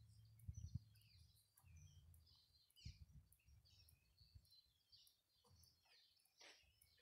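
Faint outdoor ambience of small birds chirping and calling, with many short chirps and quick sweeping notes. A low rumble runs underneath, with a few soft thumps about half a second and three seconds in.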